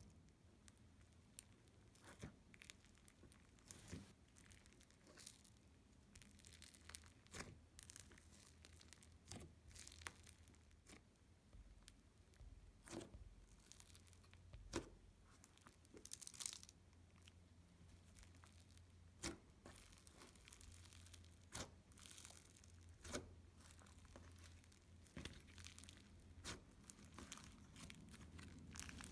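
Creamy, dense butter slime being squeezed and stretched by hand, giving faint, irregular little clicks and pops (sizzles).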